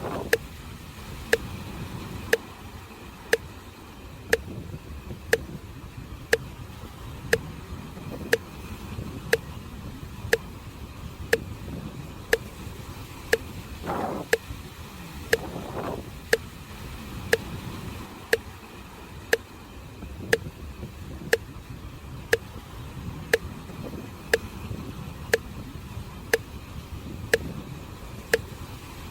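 A metronome ticking steadily about once a second, pacing the breathing. Under it runs the low, steady rush of sea waves on the shore.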